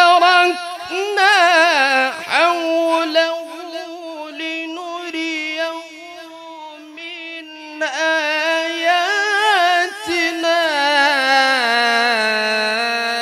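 A male qari reciting the Quran in melodic tilawah style into a handheld microphone: long drawn-out notes with rapid wavering ornaments. The voice softens around the middle, returns loudly about eight seconds in, then settles onto a lower held note near the end.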